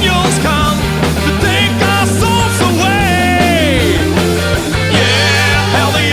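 Rock music: a band playing an instrumental passage, with a high lead line sliding and bending in pitch over a steady bass.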